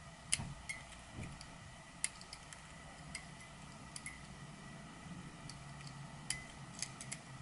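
Faint, irregular small metal clicks and ticks as a bent paperclip picks at and pulls up the gold battery-contact pins inside a compact digital camera's battery compartment. The sharpest click comes about a third of a second in.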